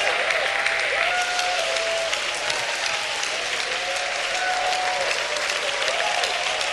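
Congregation applauding steadily, many hands clapping at once, with a few voices calling out over the clapping.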